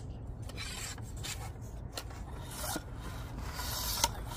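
Rubbing and scraping of a fishing rod being handled and put together, in several short strokes, with a sharp click about four seconds in.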